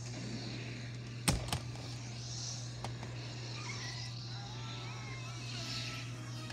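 Plastic toys being handled: two sharp clicks about a second in, over a steady low hum.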